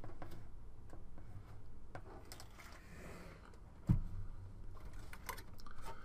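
Handling noise from a metal desktop computer case being tilted and set back down: scattered light clicks and rattles, with one knock about four seconds in.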